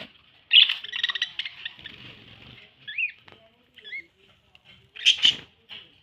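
Budgerigars chattering, with short up-and-down chirps in between, and two louder rustling bursts, one about half a second in and one near the end.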